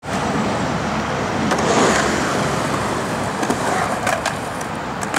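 Skateboard wheels rolling on a concrete ramp, with several sharp clacks about three to four seconds in as the board meets the metal coping.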